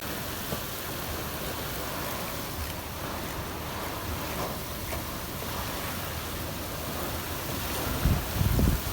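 Steady rushing noise of tropical-storm wind and rough surf. Near the end, gusts buffet the microphone in a few low thumps.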